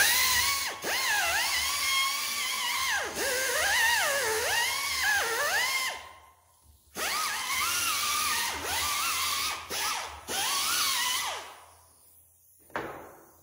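Air-powered die grinder with an abrasive disc whining at high speed, its pitch dipping again and again as it is pressed into the vise body to clean and grind the metal. It runs twice, first for about six seconds and then for about four and a half, with a short blip near the end.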